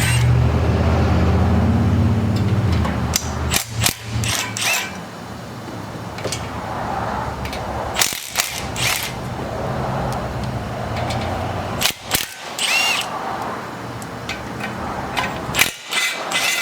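A power tool runs steadily for the first few seconds, then ratchet clicks and sharp metal clanks of tools follow as bolts are worked loose on the engine, where the exhaust header is being unbolted.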